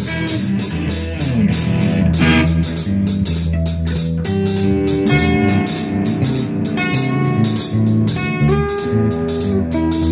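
Rock band playing with electric lead and rhythm guitars, bass guitar and drum kit. The lead guitar holds long sustained notes, a few of them bent or slid in pitch, over a steady drum beat.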